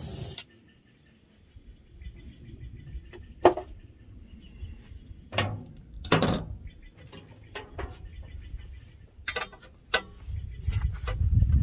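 A gas torch hissing, shut off within the first half second. Then scattered metal clinks and knocks from tool handling around the exhaust bolts. Near the end there is a louder stretch of clicking and scraping as a socket wrench goes onto a heated, rusty exhaust bolt.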